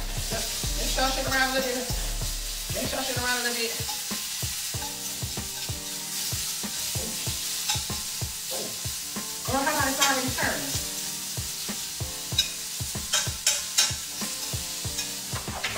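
Ground beef frying in an oiled pan, sizzling steadily while a utensil stirs and scrapes it, with many sharp clicks of the utensil against the pan.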